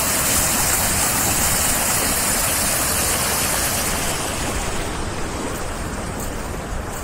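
Meltwater rushing through a breach in an earthen dam, a steady rush of water that fades over the last couple of seconds. The sound is the sign that the dam has been washed out and the lakes behind it are draining.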